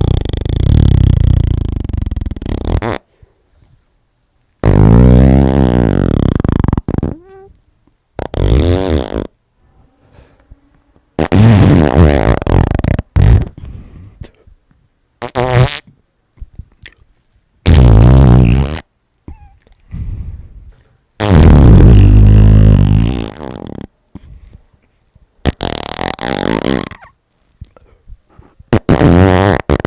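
A string of fart sounds, about nine in turn with short pauses between: some long and drawn out, some short, several with a wavering pitch.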